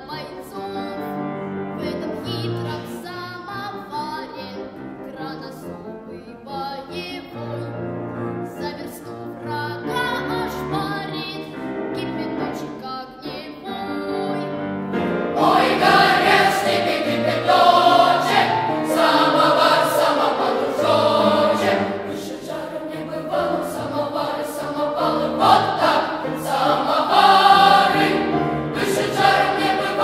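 A choir singing, with no speech. About halfway through it grows louder and fuller, with a boys' choir singing.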